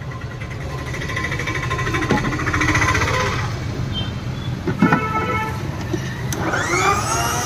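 Water splashing into a plastic blender jar, then a couple of knocks as the jar is set on a Sujata electric mixer-grinder base. About six seconds in the motor switches on and spins up with a rising whine, settling into a steady high whine as the blades start blending the fruit.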